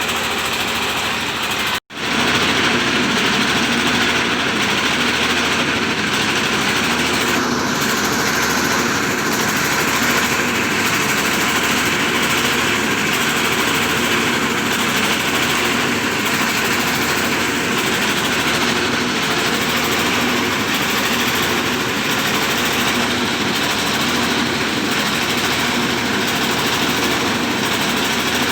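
Rice milling machine running, driven by an old Dongfeng 24 hp single-cylinder diesel engine: a loud, steady mix of engine and milling noise. It cuts out for an instant about two seconds in, then carries on unchanged.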